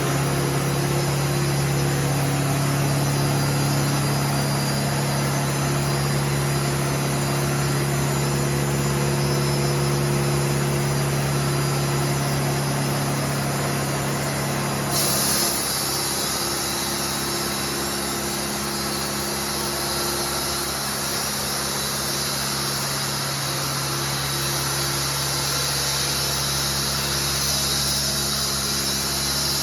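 The sawmill's 120 hp John Deere engine running steadily. About halfway through, a loud high hiss starts and carries on alongside it.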